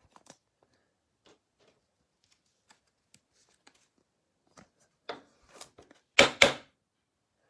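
Trading cards and a clear plastic card holder being handled by hand: faint clicks and rustles, then two short, louder brushing sounds in quick succession a little after six seconds in as the cards are set down on the table.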